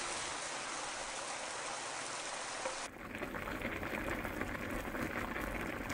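Pork pieces sizzling in a hot wok with kimchi being added, a steady frying hiss. About three seconds in it cuts to kimchi stew boiling hard in a pot, a busy bubbling with many small pops.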